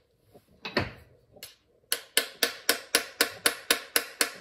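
A small hammer tapping on a Knog PWR bike light's casing: a run of about ten light, sharp taps, about four a second, starting about two seconds in. Before it comes a single knock as a tool is set down on the stone worktop.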